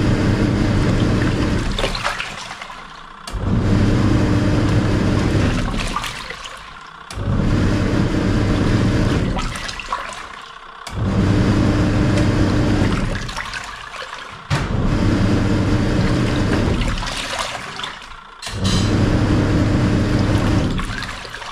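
Samsung SW-655P twin tub washing machine's wash tub agitating water: the pulsator motor hums with water churning, stopping and restarting about every four seconds as the wash timer alternates it, about five times over.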